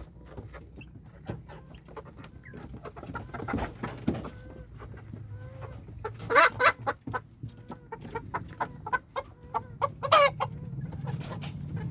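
Several chickens clucking, with two louder squawking calls about six and ten seconds in.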